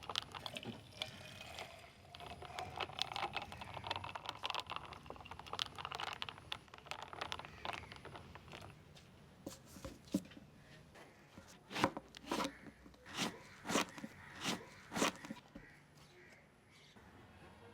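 Kitchen food preparation: several seconds of scraping and clicking, then about eight sharp knocks spaced roughly half a second to a second apart.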